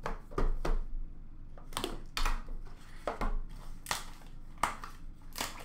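Trading card box packaging being handled and opened: irregular crinkles, taps and scrapes of cardboard and wrapping.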